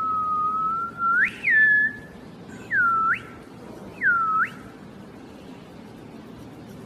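A person whistling: one long held note, then a quick upward flick and a short higher note, then two brief swooping whistles that dip and rise again, a little over a second apart.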